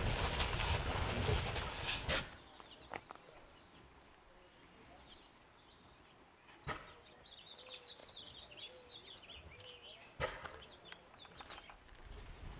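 Loud rushing noise that cuts off abruptly about two seconds in, then quiet outdoor air with small birds chirping, and two brief clicks.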